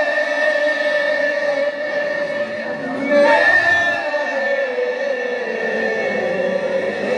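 Male voices reciting a naat together without instruments, drawing out long held notes.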